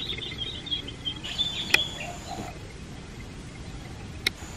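High-pitched chirping of wild birds or insects among the trees, dying away after about a second and a half, with two sharp clicks, one about two seconds in and one near the end.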